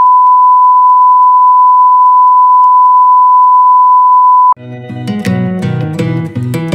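Test-card reference tone: a single steady beep, the tone that goes with television colour bars, held at one pitch and cutting off suddenly about four and a half seconds in. Background music with guitar starts right after.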